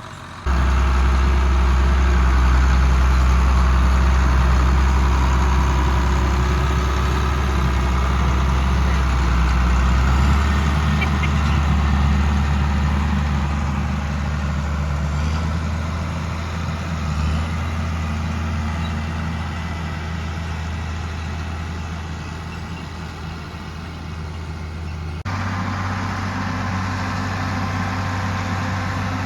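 Tractor engine running steadily. Its note sags slowly through the middle and steps up abruptly near the end.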